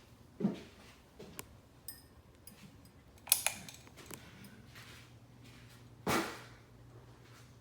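Harbor Breeze Centerville ceiling fan running with a faint steady motor hum, broken by several clicks and knocks: a pair of sharp clicks about three and a half seconds in and a short rustling burst about six seconds in.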